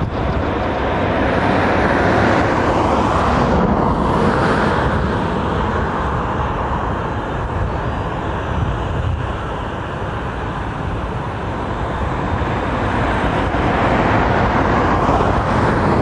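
Road traffic on a busy country road: vehicles going past, the noise swelling a couple of seconds in, easing in the middle and rising again near the end.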